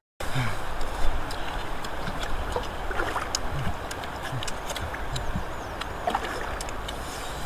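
Water sloshing and splashing close by, over a steady low rumble.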